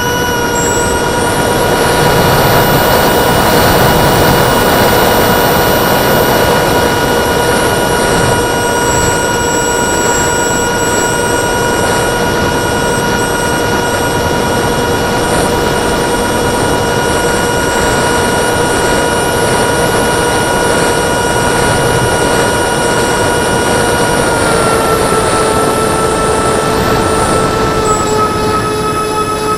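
Electric ducted fans of a model Cessna 550 Citation jet running at a steady high whine with air rush. About 24 seconds in the pitch steps down slightly as the throttle is eased, and drops a touch again near the end.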